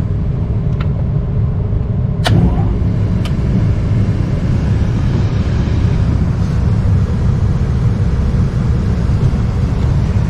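Steady low rumble of a running Lennox rooftop package unit, with a few sharp clicks in the first few seconds, the loudest about two seconds in.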